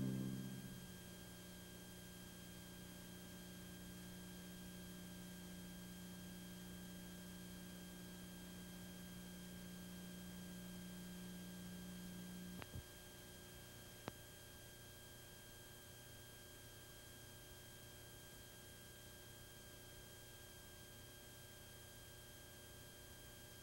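Closing music fades out within the first second, leaving a low steady electrical hum with faint hiss from the videotape playback. About halfway through a click cuts off part of the hum, and a second faint click follows about a second and a half later.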